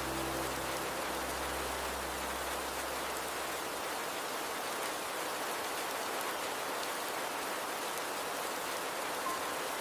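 Steady rain falling, an even hiss with no breaks. Soft sustained music tones fade out over the first few seconds.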